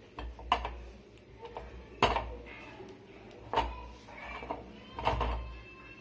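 Clinks and knocks of kitchen utensils as a piece of ginger is turned while it chars over a flame: four sharp knocks about every second and a half, each with a dull thud beneath it.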